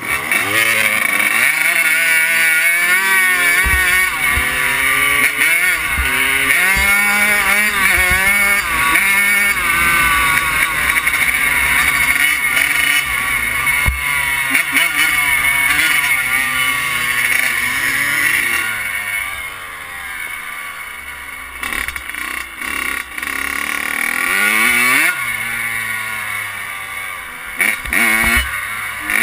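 Kawasaki KX100 dirt bike's two-stroke single-cylinder engine revving hard and climbing through the gears, its pitch rising again and again as each gear winds out. It eases off to a lower, quieter run a little past the middle, then revs up again near the end.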